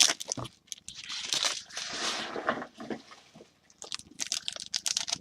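Packaging on a box of trading cards being handled and torn open: irregular crinkling, tearing and clicking, with a longer rustle about a second in.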